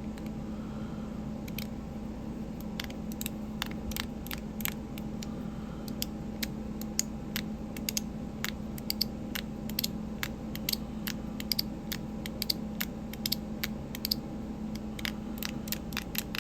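Zirconium fidget slider being flicked back and forth, its ball detents giving short quiet clicks, sparse at first and quicker and more frequent near the end.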